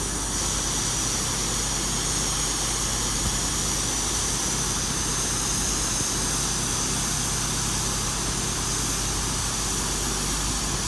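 Diesel multiple unit standing at the platform with its engines running steadily, a constant low hum under a high-pitched whine.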